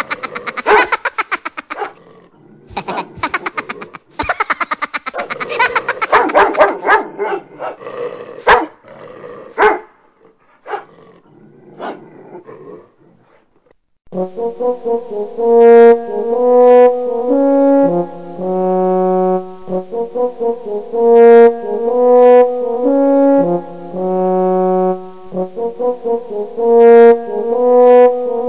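A dog barking rapidly and agitatedly at a toy lion pulled toward it, thinning out to a few scattered sounds after about ten seconds. About halfway in, a loud tune played on brass instruments starts and runs to the end.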